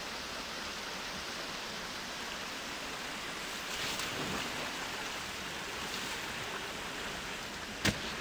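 Waterfall rushing: a steady, even hiss of falling water, with one sharp click near the end.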